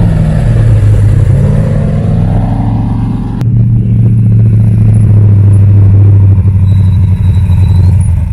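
Ultra4 race car's engine running loud as the car pulls in, its note rising and falling over the first two seconds. About three seconds in the sound breaks off suddenly into a steady deep engine drone.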